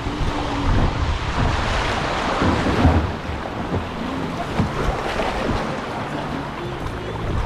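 Wind buffeting the microphone over water sloshing and splashing around a small boat on the river, with faint low tones coming and going underneath.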